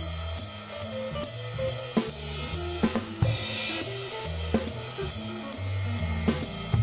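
Jazz drum kit playing a swing ride-cymbal pattern about three strokes a second, with snare and bass drum comping accents and a crash about three seconds in, over a backing track with a walking bass and a soloing melody line. The drummer marks the phrase breaks against the solo's phrasing.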